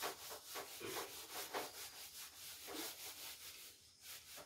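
Whiteboard duster rubbing across a whiteboard to wipe it clean: faint, quick back-and-forth wiping strokes, about three a second, that stop near the end.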